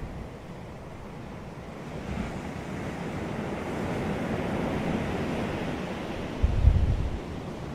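Sea waves breaking on a beach: a wave builds about two seconds in, peaks and washes up as a steady hiss. Near the end a short low rumble of wind buffets the microphone.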